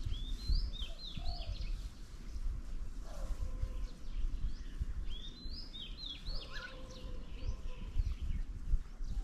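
A songbird singing the same short, quick phrase of chirps twice, about five seconds apart, over a low steady rumble.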